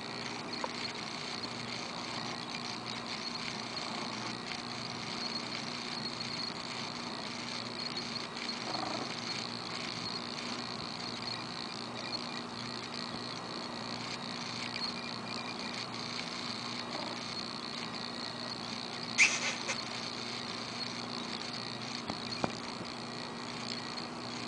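Seal mitted Ragdoll cat purring steadily close to the microphone, with a single sharp click about nineteen seconds in.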